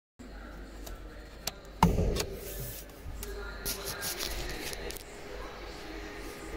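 A click and then a solid thump just before two seconds in, as the Jaguar XF's bonnet-release lever in the driver's footwell is pulled, popping the bonnet catch. Fainter clicks and rustling follow.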